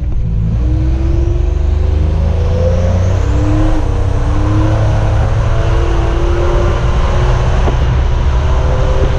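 Turbocharged 3.8-litre V6 of a Buick Grand National running while the car is driven, its pitch drifting up and down with a rising rush of road and air noise about two to three seconds in.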